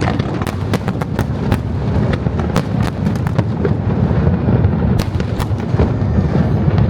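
Fireworks going off in quick succession: many sharp bangs and crackles, several a second, over a continuous low rumble.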